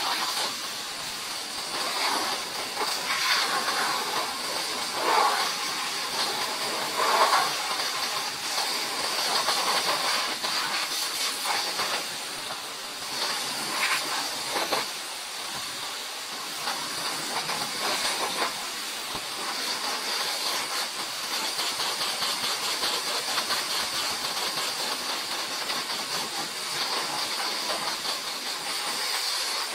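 High-pressure washer lance spraying a jet of water onto a car, a steady hiss with a few brief louder spells.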